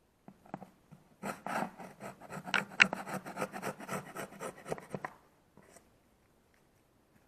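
Wood chisel scraping and shaving the locking lip off the edge of a laminate floor board, a rapid run of rasping strokes lasting about four seconds, starting about a second in, with a few light taps before it.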